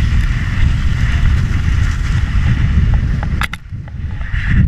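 Wind rumbling on the microphone of a camera carried by a skier going downhill, with the hiss of skis running on snow. The rumble eases a little past three seconds, where a few sharp clicks come through, then builds again near the end.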